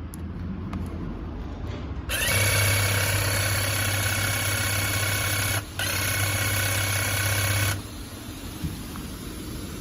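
Makita MUH500D cordless hedge trimmer with a 500 mm blade running with no load, its blades cutting back and forth: a steady motor hum starting about two seconds in, cut for a split second partway through, then stopping near the end.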